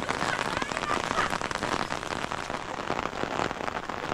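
Heavy rain falling steadily, a dense, even patter of drops on the ground and surrounding surfaces.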